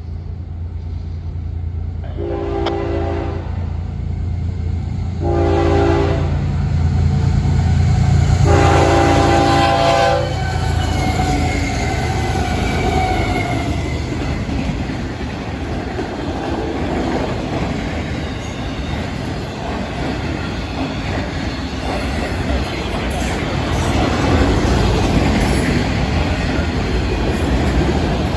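Florida East Coast Railway freight train's lead GE ES44C4 diesel locomotives sounding the horn in three blasts, the last one longest, over a low engine rumble. From about ten seconds in, the train rolls past with steady wheel-on-rail clatter.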